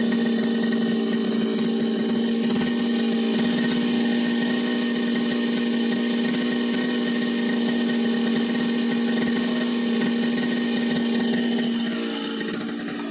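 Brush cutter's small engine running steadily at speed with a constant buzzing note, then easing off and getting quieter near the end.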